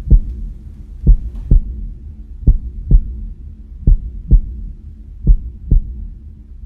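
Heartbeat sound effect: slow double thumps, about one pair every second and a half, over a low steady drone.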